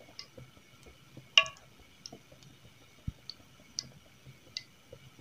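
Pan of cooking oil heating on a stove: scattered light ticks and clicks, with one sharper ringing metallic clink about a second and a half in.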